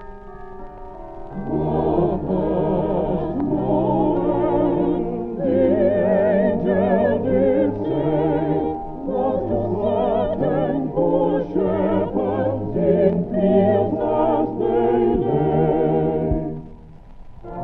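Old-time music recording with wavering, vibrato-laden singing over accompaniment, muffled and dull as if heard from another room.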